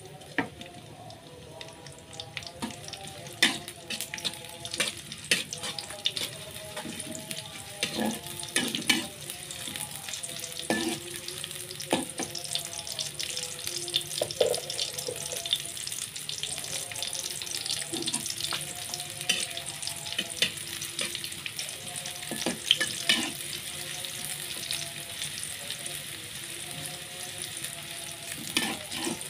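Sliced garlic frying in hot oil in a pan with a steady sizzle. A spatula knocks and scrapes against the pan now and then as it is stirred.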